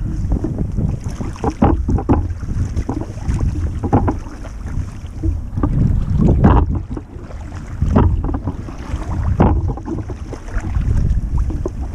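Wind rumbling on the microphone of a sailing kayak, with the splash of a double-bladed paddle stroke every one to two seconds.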